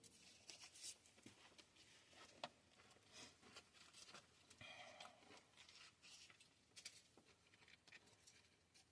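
Near silence: faint scattered rustling and light clicks of hands handling things.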